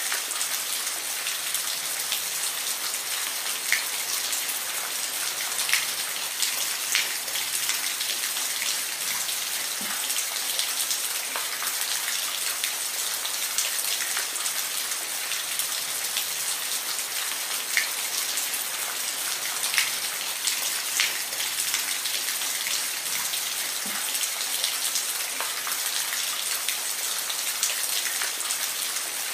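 Steady rain falling, an even hiss with scattered individual drops ticking distinctly on a hard surface.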